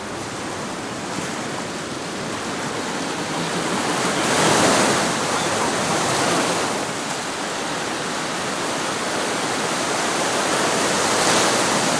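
Sea waves washing and breaking against the rocks at the water's edge, a steady rushing that swells loudest about four seconds in.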